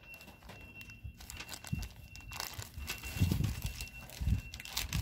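Clear plastic bag of small metal eyelets crinkling as it is handled. A couple of dull thumps come about three seconds in and again a second later.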